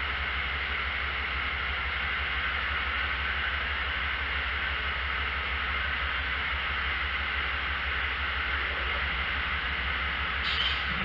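Amtrak GE P42DC Genesis diesel locomotive idling while the train stands still, a steady low drone with a constant hiss over it. A short burst of hiss comes near the end.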